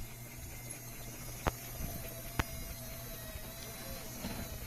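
The small motor of a remote-control model excavator whining steadily, with two sharp clicks about a second apart.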